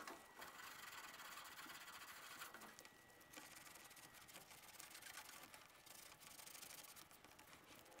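Near silence with faint rubbing as the end of a copper refrigerant tube is sanded clean by hand.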